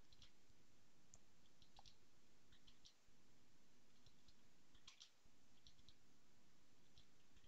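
Faint, scattered clicks of computer keys, single and in small clusters, over near-silent room tone.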